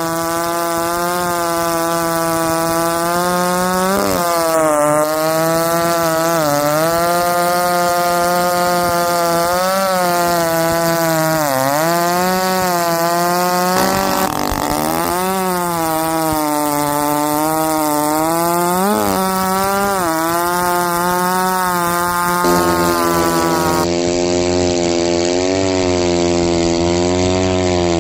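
Husqvarna 371XP 70cc two-stroke chainsaw noodling big cherry logs at full throttle, its engine note dipping again and again as the chain bites into the wood and recovering between cuts. Its owner thinks it may be running a little lean.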